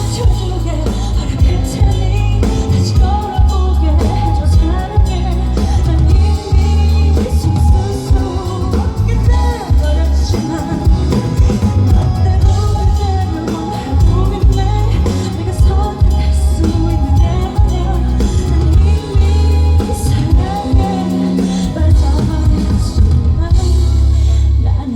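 A live band playing a song with a female lead singer, with a heavy, booming bass under the voice.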